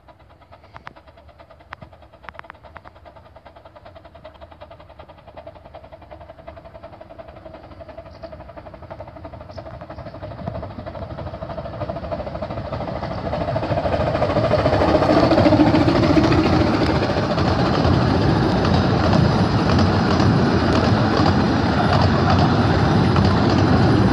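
Miniature-gauge steam locomotive Northern Rock pulling away with a train, growing steadily louder as it approaches, then its coaches rumbling past close by.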